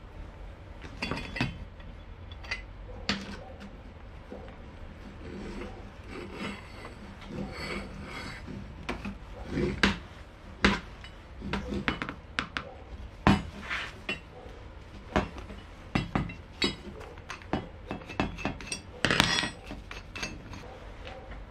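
Steel parts of a homemade pump drill being handled on a wooden workbench: irregular clicks, knocks and scrapes from a keyed drill chuck, its chuck key and square steel bars. The loudest clatter comes about two seconds before the end.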